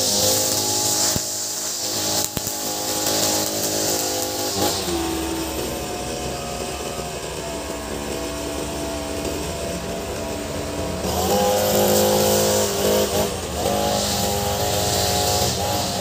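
Ogawa 26cc multi-tool brush cutter with a nylon-line trimmer head, engine running at high revs at first. It drops to a lower speed about five seconds in and revs up again about eleven seconds in.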